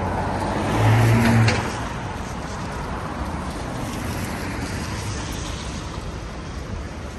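Road traffic on a rain-wet street, a steady hiss of tyres and engines. About a second in, a vehicle passes close: its low engine rumble and tyre swish swell and then fade.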